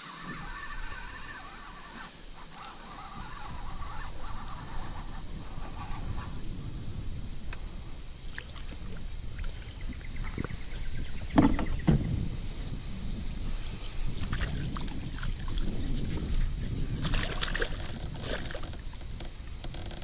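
A hooked bass splashing at the surface beside a kayak as it is reeled in, with sharp splashes about halfway through and again near the end, over a steady low rumble.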